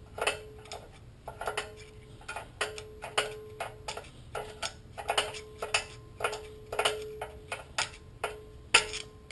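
Parking brake star-wheel adjuster on a 2009 Infiniti G37's rear drum-in-hat brake clicking as a screwdriver turns it through the rotor hat to back the shoes off. The clicks come in quick runs, each run followed by a brief ring.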